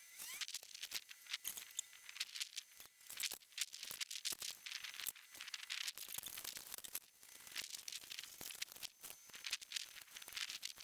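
A paper template being cut out and handled: faint, irregular snips and crinkling paper.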